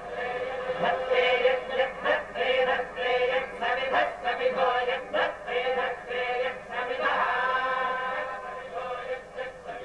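A group of men chanting Hindu devotional hymns, with a steady held tone under the voices.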